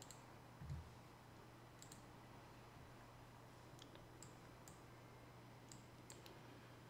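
Faint, scattered computer mouse clicks, about seven spread over the stretch, with a soft low thump about a second in, over a low steady room hum.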